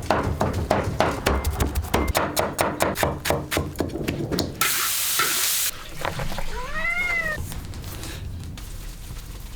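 A quick run of sharp knocks, about five a second, for the first four or so seconds. Then about a second of loud hiss that cuts off suddenly, and a little later a single animal call that rises and falls in pitch.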